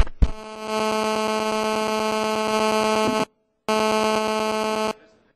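Loud mobile-phone interference buzz picked up through the chamber's microphone and sound system, the steady pulsing 'dit-dit' of a phone switched on near the microphone. It starts just after a click, runs about three seconds, breaks off briefly, comes back for about a second more, and then stops.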